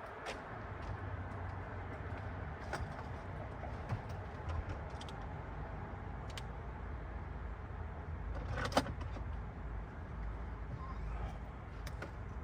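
Light knocks and clicks of things being handled at a parked car, with one louder clunk about three-quarters through, over a steady low outdoor rumble.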